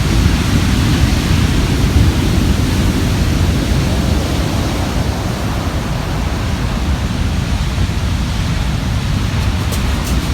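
Heavy ocean surf at high tide, a steady loud rumble of breaking waves with a deep low end and no distinct single crash. A few faint clicks near the end.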